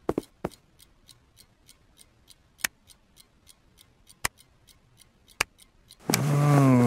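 Soft, steady ticking, about four ticks a second, with a few louder clicks as a cartoon cat pats a sleeping man's face with its paw. Near the end a loud, low, drawn-out vocal groan begins.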